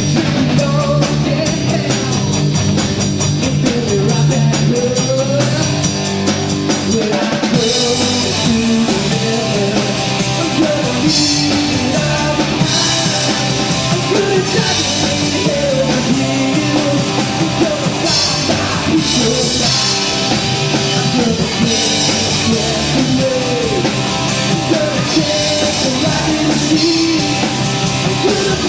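A live rock band playing, with electric guitar, a drum kit and a lead singer. The cymbals come in strongly about eight seconds in.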